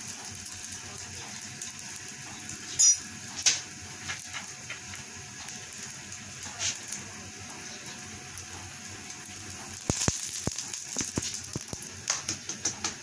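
Bread frying in hot oil in a nonstick pan: a steady sizzle with scattered pops and crackles, which get louder and busier about ten seconds in. A brief sharp click sounds about three seconds in.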